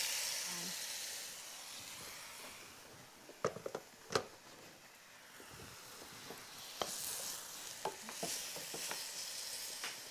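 Hot liquid poured into a pot of browned meat and vegetables, sizzling and hissing as it deglazes the pan juices, dying down over the first couple of seconds. After that come two sharp knocks and a fainter sizzle with light stirring clicks.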